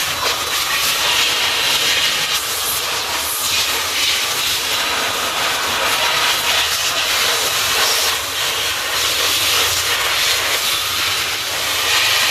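A steady, loud hiss of rushing air from a tool blowing dust out of the inside of a power inverter, wavering slightly in strength as the tool is moved.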